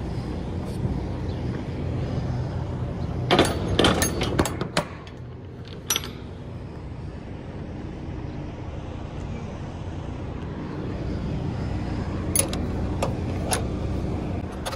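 Semi truck engine running with a steady low drone. Sharp clicks and knocks come in a cluster about three to five seconds in, once more about a second later, and twice near the end.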